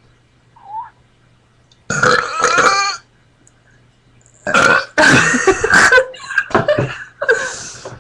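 Deliberate loud burping in a burping contest: one long burp about two seconds in, then a run of further burps in the second half.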